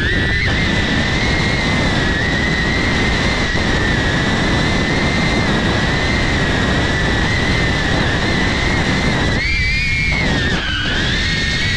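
DJI Avata FPV drone's ducted propellers whining steadily, heard from the GoPro mounted on the drone, over rushing wind noise on the microphone. Near the end the whine rises briefly, then dips and settles again.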